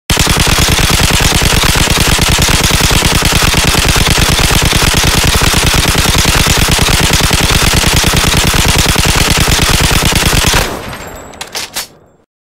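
MG4 5.56 mm light machine gun firing one long, rapid, unbroken burst on full auto for about ten seconds. The firing then stops, and the echo dies away with a few sharp clicks.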